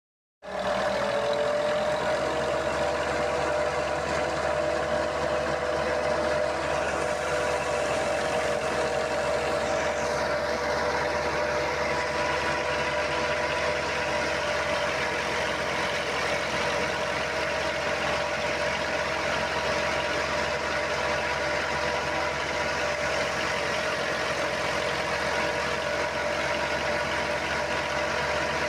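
Tractor-driven wheat thresher running steadily, with a constant whine over a dense mechanical clatter. It cuts in abruptly at the start.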